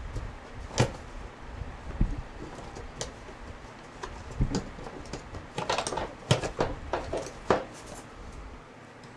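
Plastic interior trim panel of a car being pushed and tapped into place: a series of sharp clicks and knocks as its clips snap in, busiest in the second half.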